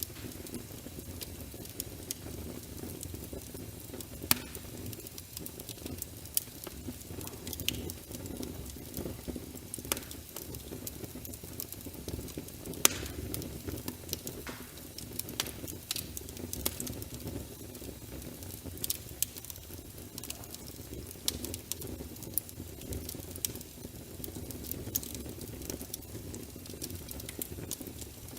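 Wood fire burning in a fireplace, a steady low rumble of flames with frequent crackles and sharp pops, two louder pops about four and thirteen seconds in.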